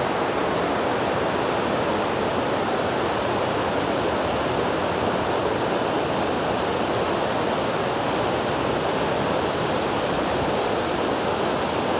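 Water gushing through a row of open dam sluice gates and churning into white water below: a steady, even rush.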